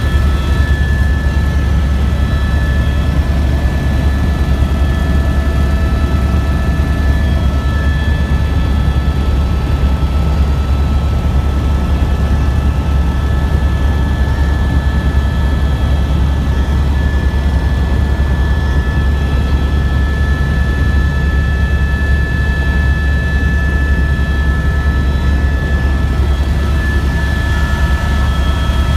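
Helicopter cabin noise in flight: a loud, steady low drone from the rotor and engine, with a steady high whine over it.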